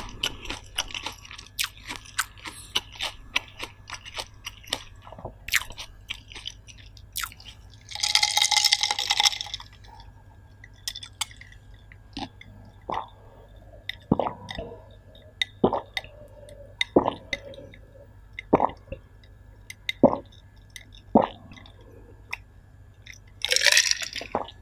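Close-miked mouth sounds of a person chewing steamed shellfish: wet clicks and smacks. Further in comes a drink swallowed in evenly spaced gulps, about one every second and a half, with a short breathy burst before the gulps and another near the end.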